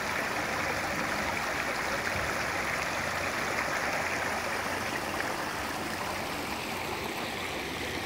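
Water rushing and splashing steadily over rocks into a pond from a small man-made waterfall inflow, growing slightly fainter near the end.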